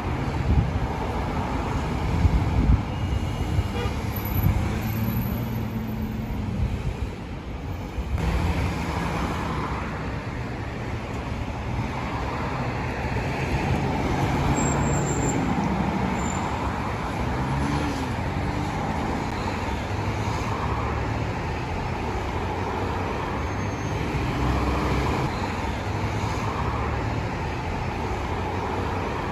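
City street traffic: motor vehicles passing with engines running over a steady roadway noise. The sound changes abruptly about eight seconds in.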